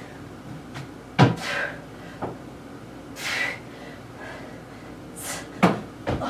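A person working hard through an exercise interval: forceful, breathy exhalations, with two thuds about four seconds apart, one near the start and one near the end.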